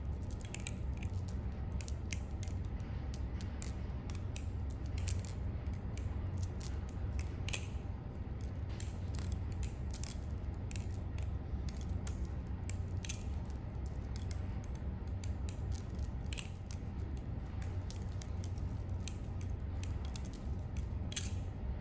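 Vandir Paim balisong (butterfly knife) being flipped: its handles and latch clicking against each other and the blade at an irregular pace, dozens of sharp metallic clicks.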